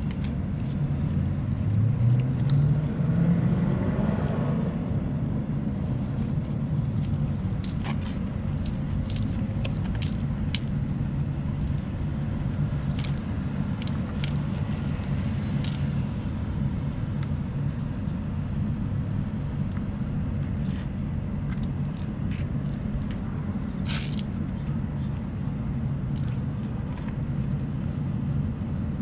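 A vehicle engine running with a steady low hum, rising in pitch during the first few seconds. Scattered light clicks and knocks of a stainless steel pot being scrubbed and handled sound over it.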